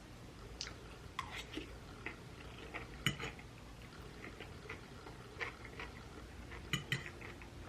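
Scattered light clicks and taps of cutlery against a plate while someone eats, a few stronger taps among fainter ones.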